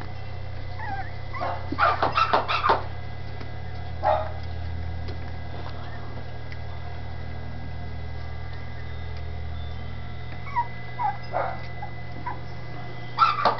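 Dachshund puppies whimpering and yipping in short squeaky calls: a quick cluster about two seconds in, a single one around four seconds, then a few more near the end. A steady low hum runs underneath.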